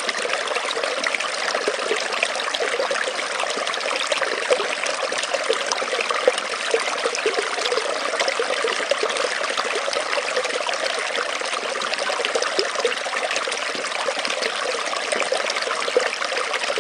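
Small forest stream trickling and burbling over stones, a steady flow with many small splashes.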